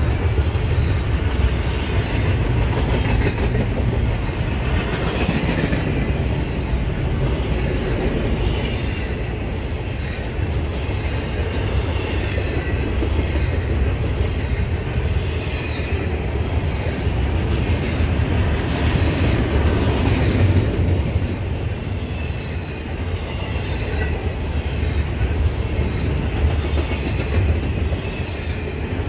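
Double-stack intermodal freight cars rolling past: a loud, steady rumble of steel wheels on rail, with a repeating clickety-clack of the wheels.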